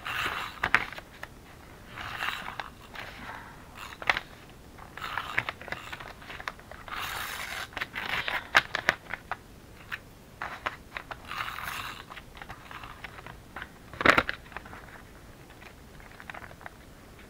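Brown paper bag crinkling and scraping in short bursts every second or two as it is handled and rubbed down onto a journal page, with the scrape of a tape runner laying adhesive. A sharp click stands out about fourteen seconds in.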